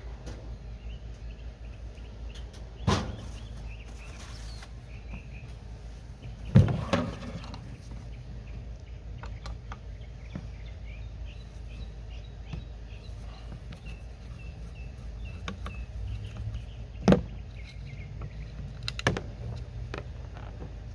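Hand tools knocking and clanking on a motorcycle exhaust pipe while a small bracket is being removed: a few sharp knocks, the loudest about six and a half seconds in, over a steady low hum.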